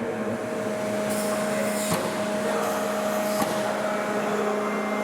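Steady mechanical whine and hum of the hydraulic power running the F-15's hydraulic operation display, with two bursts of hiss, about a second in and around three seconds in.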